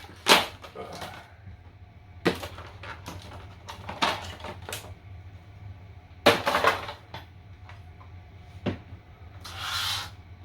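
The plastic case of a 24-piece Milwaukee Shockwave impact driver bit set being opened and handled: a series of sharp clicks and knocks, about six spread over the stretch, and a short rustle near the end.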